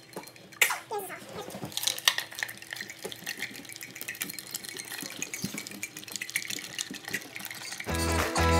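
Water running from a tap, with small clinks of dishes and utensils; guitar music comes in near the end.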